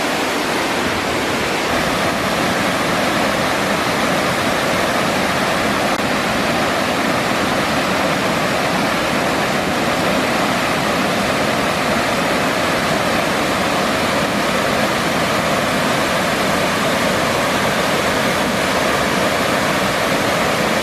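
Waterfall on a small river, the lower falls running high with snowmelt: a loud, steady rush of falling water.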